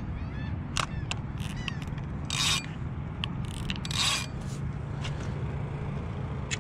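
Handling of a fishing rod and spinning reel: a few short scrapes and rubs, with two slightly longer zipping sounds about two and a half and four seconds in, over a steady low rumble.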